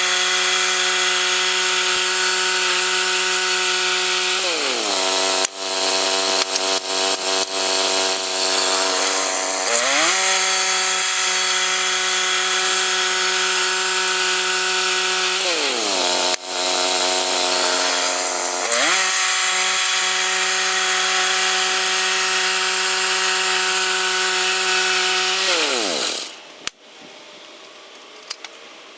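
Two-stroke chainsaw running at high revs. It drops to lower revs twice and is throttled back up each time, then winds down and cuts off near the end.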